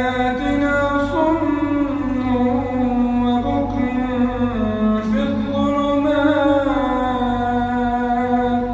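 Male Quran reciter chanting in a long melodic line, one voice holding drawn-out notes and bending their pitch in ornamented turns, over a steady low hum.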